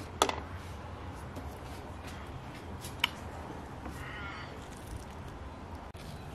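Quiet steady background hum with a couple of faint clicks and a brief high cry about four seconds in.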